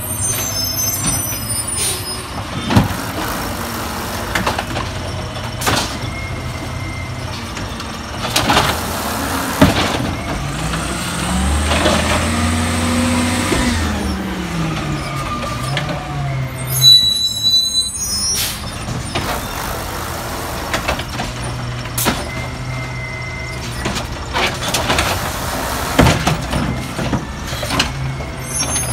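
Peterbilt 320 automated side-loader garbage truck with a natural-gas engine, running at the curb. Its engine revs up and falls back once near the middle as the hydraulic arm works. Air-brake hisses and several sharp clanks from the arm and carts sound over it.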